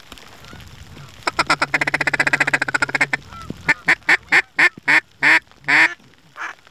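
Hunter's mallard duck call blown close by: a fast, rolling feed chatter for about two seconds, then a string of about eight loud quacks, each dropping in pitch, to draw in a circling duck.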